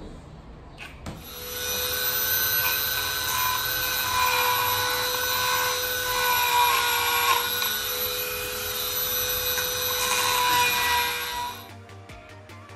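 Handheld corded rotary tool spinning at high speed, a steady high whine over a grinding hiss as its bit works the surface of a sculpture. It starts about a second in, wavers slightly under load, and cuts off suddenly near the end.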